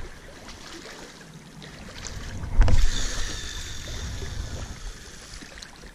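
A cast with a baitcasting reel: a sudden low thump as the rod is swung about two and a half seconds in, then the reel's spool whirring high as the line pays out for about a second and a half.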